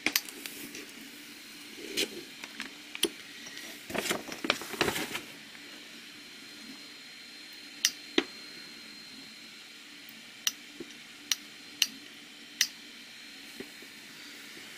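Handling noises around an unboxed model aircraft engine: scattered light clicks and taps, about a dozen over the span, with a short rustling cluster about four seconds in, over a faint steady hum.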